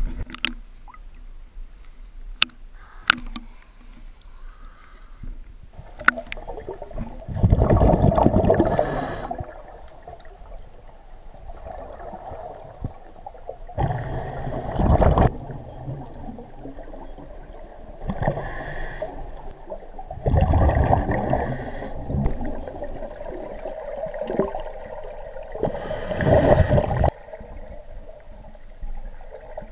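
Water sloshing with sharp clicks as the camera goes under, then a scuba diver breathing through a regulator underwater: a steady hum broken by five loud rushes of exhaled bubbles a few seconds apart.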